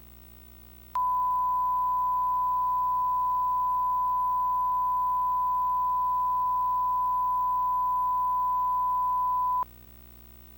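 Steady, single-pitched electronic alert tone in an emergency alert broadcast. It starts abruptly about a second in, holds one unchanging pitch for roughly eight and a half seconds, and cuts off sharply, leaving a faint hum.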